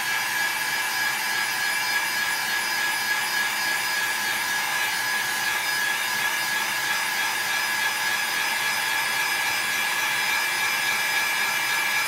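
Steady whirr and rush of air from a small electric blower, with a constant high-pitched whine over it.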